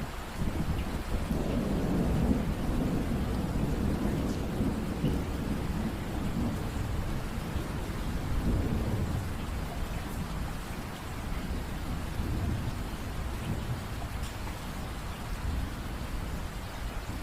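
Steady rain with a low rolling rumble of thunder that is strongest in the first half and slowly dies away.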